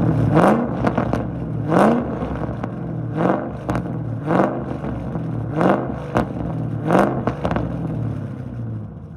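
Cammed Ford 4.6 L three-valve V8 in an S197 Mustang blipped six times, about one quick rev every second and a half, dropping back to idle between blips. It settles to a quieter idle near the end.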